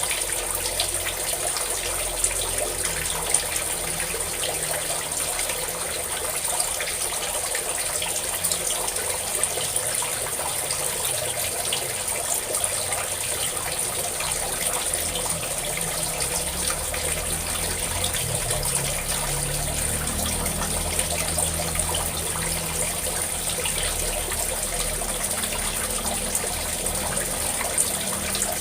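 Water pouring and splashing steadily from a spout, an even, unbroken rush.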